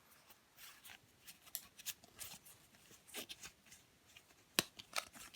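Board-game pieces and their packaging being handled: faint, scattered rustles and small clicks, with one sharper click about four and a half seconds in.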